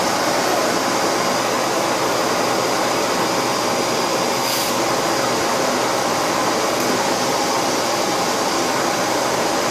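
Vacuum cleaner running steadily: a constant motor and airflow noise with a faint steady whine, and a brief hissy surge about four and a half seconds in.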